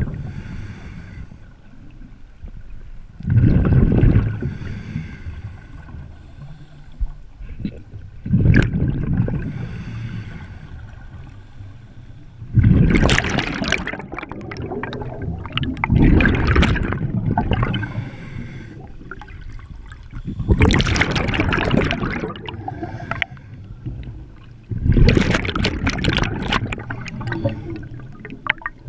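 Scuba regulator breathing heard underwater: a rush of exhaled bubbles every four seconds or so, with quieter noise between breaths. The loudest bursts, in the second half, stream right past the camera.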